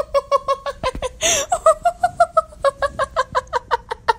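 A person laughing hard and continuously: a rapid, high-pitched run of 'ha-ha' pulses, about six a second, broken by a sharp gasping in-breath about a second in.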